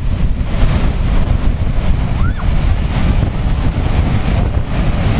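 Wind buffeting the microphone over surf breaking on the beach, with a faint short whistle-like chirp about two seconds in.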